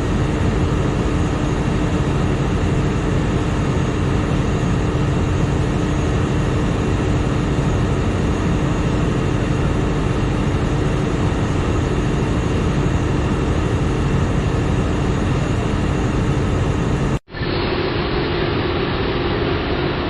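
Overhauled TDS-11SA top drive running steadily on test with a constant mechanical hum. About 17 seconds in the sound drops out for an instant, then the running resumes with a slightly higher hum.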